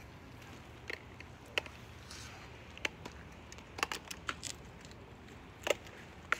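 Scattered sharp clicks and taps, about a dozen at uneven intervals, some in quick clusters and the loudest near the end: handling noise from fingers on a phone as it is moved about.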